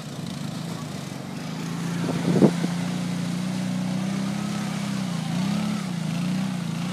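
A vehicle engine running steadily at low revs, its pitch wavering a little in the second half. A single sharp, loud knock comes about two and a half seconds in.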